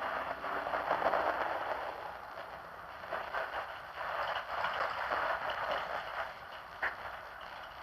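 Cabin noise inside a bus, a rushing haze that swells and fades, with one sharp click about seven seconds in.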